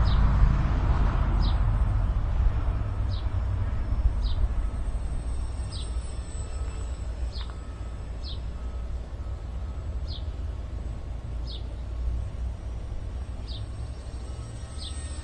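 Wind buffeting the microphone with a low rumble, strongest at first and easing off. Through it, a bird repeats a short high chirp about every second and a half.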